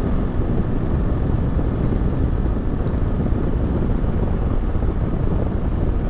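Yamaha Ténéré 700 parallel-twin motorcycle riding at a steady cruising speed: a steady low rumble of wind over the camera microphone, with the engine and road noise underneath.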